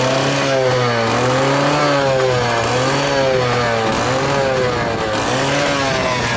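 Kawasaki KSR80's 80cc two-stroke single-cylinder engine running and being revved, its pitch rising and falling about four or five times as the throttle is blipped. It revs up cleanly with no abnormal noise.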